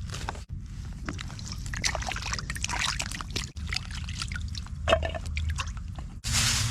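Water pouring and trickling, mixed with scattered clinks and knocks.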